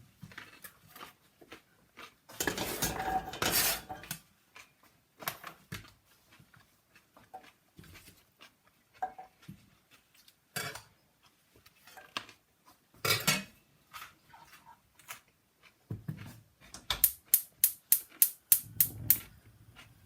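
Kitchen work with a knife and utensils while preparing vegetables: scattered clicks and knocks, a longer scraping, rustling stretch early on, and a quick run of about ten knife strikes on a chopping board near the end.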